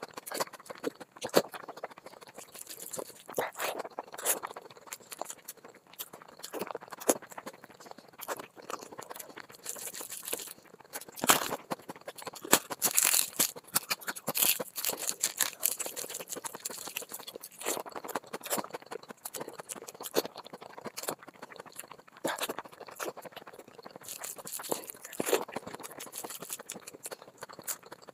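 Close-miked eating sounds of a person eating rice and egg curry by hand: chewing with mouthfuls of soft rice, and irregular wet clicks and smacks from the mouth and fingers.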